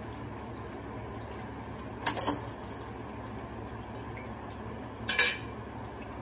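Two clinks of a metal serving spoon and fork against a plate, about three seconds apart, the second slightly louder, over the steady sizzle of battered broccoli frying in a pan of oil.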